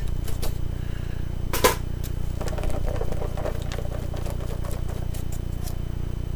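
Clear plastic salad container being handled and opened: a sharp plastic snap about a second and a half in, then lighter clicks and crinkles, over a steady low hum.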